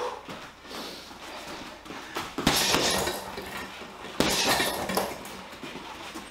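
Boxing-gloved punches landing on a heavy punching bag: a few lighter hits, then two hard ones about two and a half and four seconds in, each followed by a short rattle.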